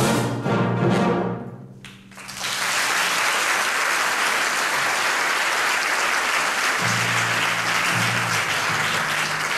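A wind concert band plays the last chord of a march, which cuts off about two seconds in. The audience then applauds steadily.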